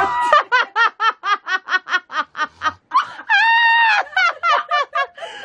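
A woman's voice doing a high-pitched vocal bit: a fast run of short syllables, about six a second, one long held high note in the middle, then more quick syllables.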